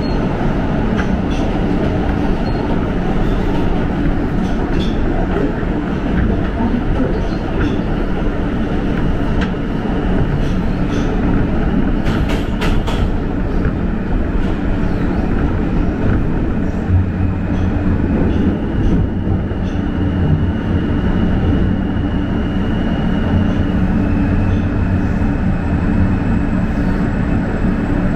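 Interior of an R160 subway car running through the tunnel: steady rumble of wheels on rail, with a cluster of sharp clicks over rail joints about halfway through. A whine from the car's electric traction motors steps down in pitch twice in the second half as the train slows into the station.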